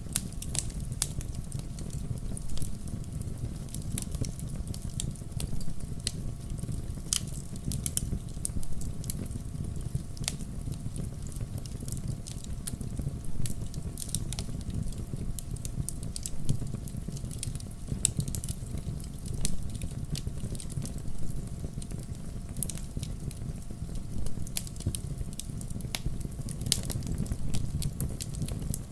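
Wood campfire crackling: frequent irregular sharp pops and snaps over a steady low rumble of the flames.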